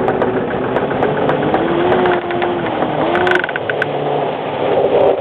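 Outboard boat engines running on open water, over a steady rush of noise. The engine note glides up and down, most clearly between about two and three and a half seconds in.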